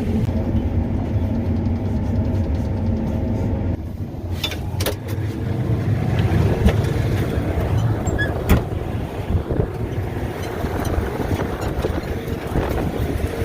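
Farm machinery engine running steadily as the machine moves off. About four seconds in the sound drops a little and turns rougher, with a few sharp knocks.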